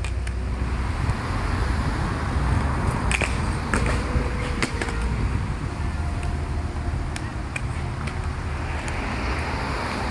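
Aggressive inline skate wheels rolling over concrete: a steady hiss over a low rumble, with several sharp clicks from the skates.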